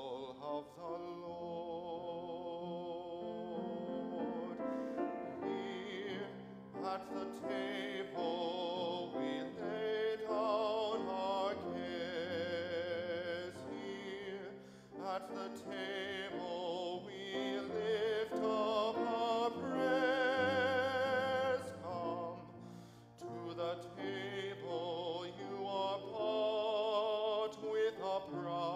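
A solo male voice sings sustained phrases with vibrato, accompanied by grand piano, with short breaks between phrases.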